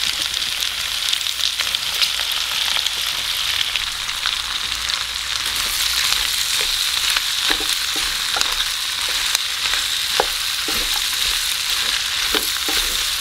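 Pork belly, onions and bamboo shoot strips sizzling in a hot nonstick frying pan while a wooden spatula stirs them. Scattered scrapes and taps of the spatula against the pan come through the steady sizzle, more often in the second half.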